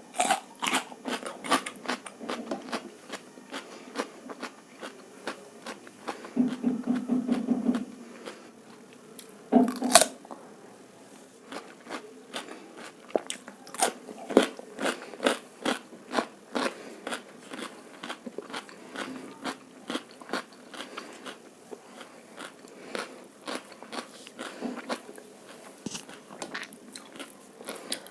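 Close-miked chewing and biting while eating egg fried rice and chilli chicken: a dense, irregular run of wet mouth clicks and crunches. There is a louder stretch of chewing about six to eight seconds in, and a sharp crunch about ten seconds in.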